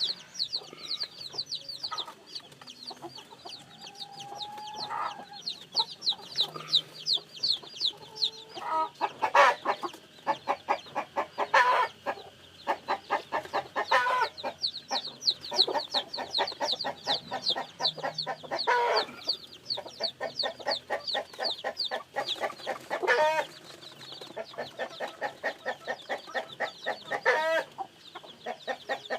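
Newly hatched chicks peeping in a dense stream of rapid, high, falling chirps, easing off for several seconds near the start, with adult chickens clucking among them every few seconds.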